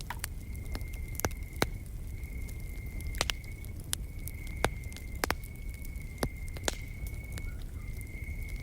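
Wood fire crackling, with sharp pops about once a second over a steady low rumble. Behind it an insect trills steadily on one high note, breaking off briefly near the end.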